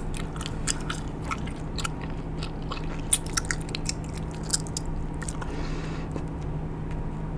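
Bubble gum being chewed and smacked with the mouth open: irregular wet clicks and smacks, a few to several a second.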